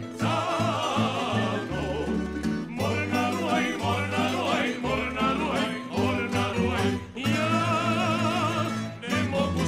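Tamburica ensemble playing a slow song live: plucked tamburicas over a bass line, with a male singer holding long notes with vibrato.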